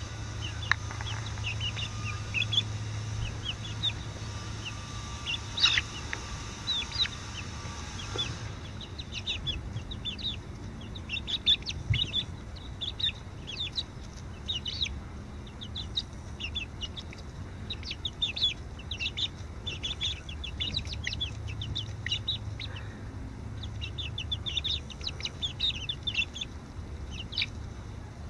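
A small flock of five-week-old chicks (Welsummer, Speckled Sussex, Partridge Rock and Easter Egger) peeping and chirping continually, many short high calls overlapping, over a low steady hum.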